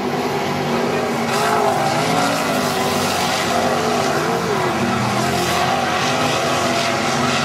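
Several non-wing sprint cars racing, their V8 engines' pitch rising and falling in waves as the drivers lift and get back on the throttle through the turns.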